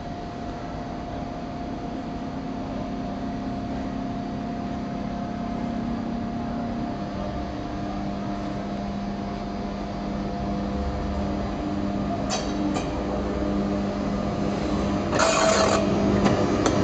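ČD class 362 electric locomotive moving slowly toward the listener, its steady electrical hum and fan noise with several held tones growing gradually louder as it draws near. Two short clicks come about twelve seconds in, and a short, loud harsh noise about three seconds later as the locomotive comes close.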